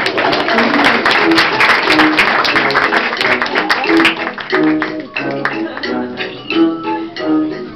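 Background music with plucked guitar notes. A dense crackling noise with many sharp clicks lies over it for the first half, then thins out.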